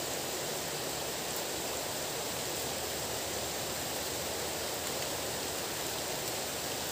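Steady rain falling, an even hiss with nothing else standing out.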